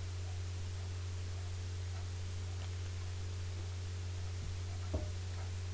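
Steady white-noise hiss and a low electrical hum from a poor-quality recording microphone, with a couple of faint knocks near the end.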